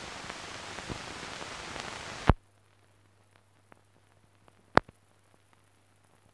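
Steady hiss and crackle from the blank soundtrack of a silent film transfer, with scattered clicks. A loud pop comes a little over two seconds in, and then the hiss cuts off. After that only faint ticks and a low hum remain, with one sharp click later on.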